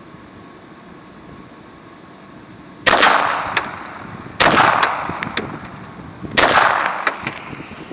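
Three handgun shots from a semi-automatic pistol, about one and a half to two seconds apart, each sharp crack trailing off over about a second.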